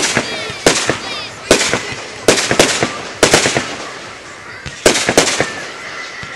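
Aerial fireworks shells bursting: a series of sharp bangs, roughly one or two a second, each trailing off, with a short lull about four seconds in.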